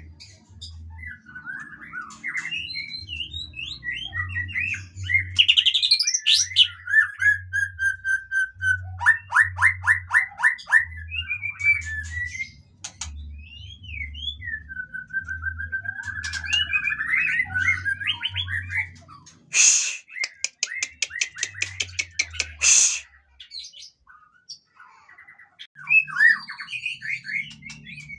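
White-rumped shama (murai batu) singing a long, varied song of clear whistles, gliding notes, trills and rapid chattering rattles. About twenty seconds in comes a loud, harsh run of fast clicks lasting some three seconds.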